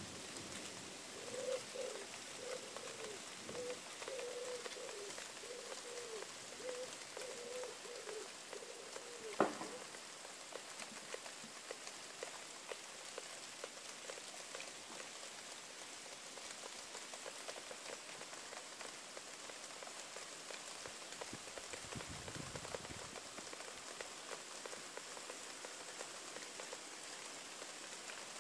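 Steady rain falling. A bird coos in a run of low notes during the first third, and a single sharp tap about a third of the way through is the loudest sound.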